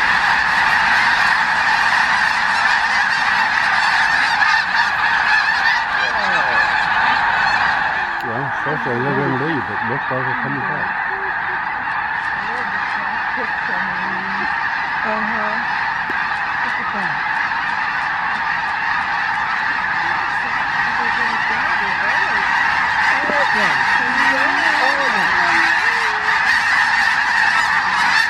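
A huge flock of snow geese calling all at once, a dense, unbroken chorus of honking.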